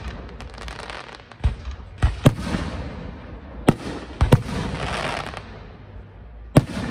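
Aerial fireworks shells bursting overhead: about six sharp bangs at uneven intervals, each trailing off in a rustling echo, with fine crackling near the start.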